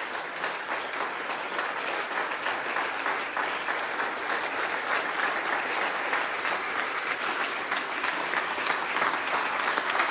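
A roomful of spectators applauding, many hands clapping steadily.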